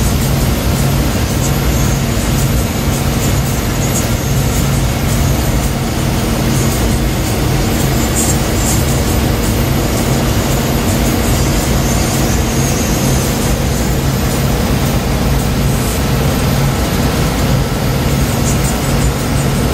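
Ashok Leyland BS4 bus's diesel engine running steadily on the move, a constant low drone over road and body noise.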